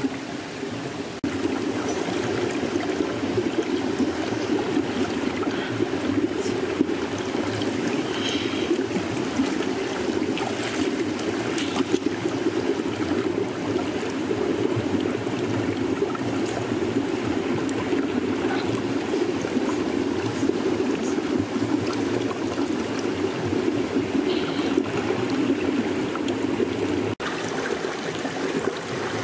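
Shallow rocky stream flowing: a steady rush of water.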